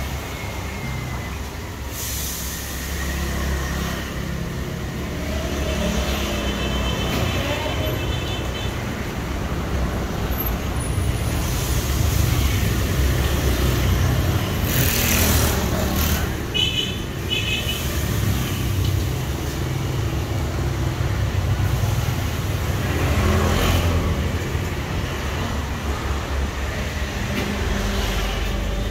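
Steady low rumble of street traffic, with a louder swell of a vehicle passing about halfway through. Two short spells of high, chirping beeps sound a few seconds in and again just after the middle.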